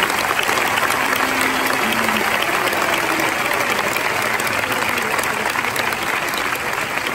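A large concert audience applauding: dense, steady clapping that eases slightly near the end.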